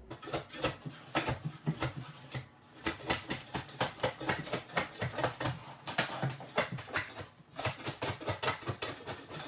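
Old kitchen flooring being pried up and torn out: a quick, irregular run of knocks, cracks and scraping clatter, several a second.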